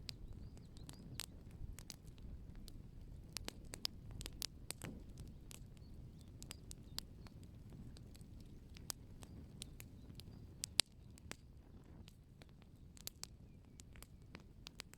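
Open wood fire crackling: irregular sharp pops and snaps of burning wood over a steady low rumble, with one loud pop about two-thirds of the way through.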